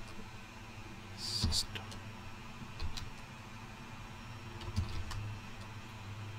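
A few scattered keystrokes on a computer keyboard, single soft clicks over a low steady hum, with a brief hiss about a second in.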